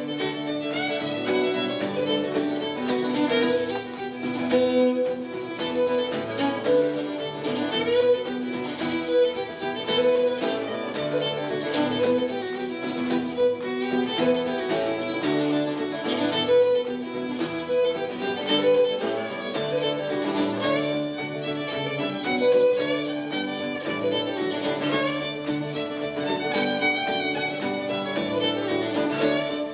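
Irish reel played on fiddle with acoustic guitar accompaniment: a fast, continuous run of fiddle notes over guitar chords.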